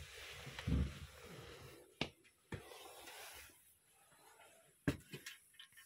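Wind-driven rain gusting against the window, heard from indoors, rising and fading over the first few seconds. A low thump comes near the start, and a few sharp knocks follow later.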